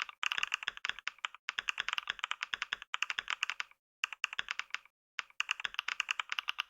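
Fast typing on a computer keyboard, about 88 words per minute: a dense run of key clicks broken by a few short pauses.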